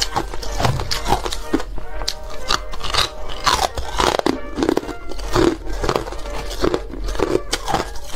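Chunks of ice being bitten and chewed, a steady run of sharp, crisp crunches, over background music with sustained tones.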